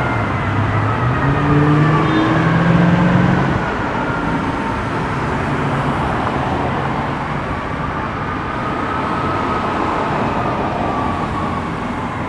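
Fire ladder truck responding: its siren wails, slowly falling and then rising again. In the first few seconds there are several short blasts of the air horn, which are the loudest part. Traffic noise runs underneath.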